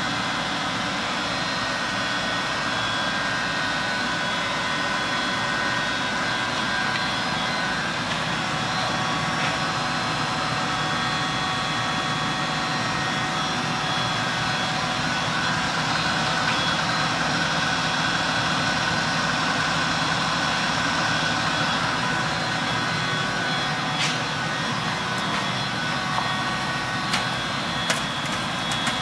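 RTC LA-310 infrared belt furnace running with a steady mechanical hum made up of several steady tones. A few light clicks come in near the end.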